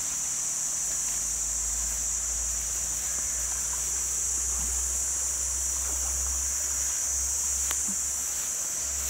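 A shallow forest stream flowing over rocks, with a steady, high-pitched insect drone above it throughout.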